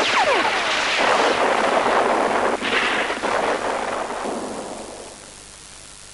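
Battle sounds of explosions and gunfire: a dense, continuous din of blasts and shots with a falling whistle near the start. It fades out over the last two seconds.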